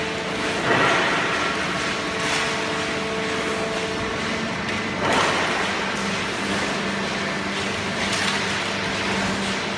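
Hydraulic waste-paper baling press running: a steady machine hum with several held tones, one dropping in pitch about halfway through. A short rush of noise comes every couple of seconds.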